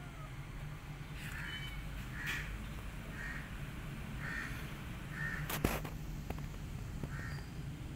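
A bird cawing repeatedly, about once a second, with one sharp click a little past halfway.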